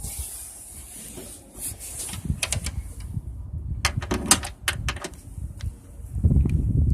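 Scattered sharp clicks and clacks of metal being handled, bunched about four seconds in, with louder low rumbling handling noise from about six seconds in.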